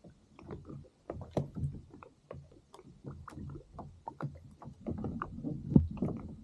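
Irregular light knocks and clatter on a fishing kayak, with water moving against the hull.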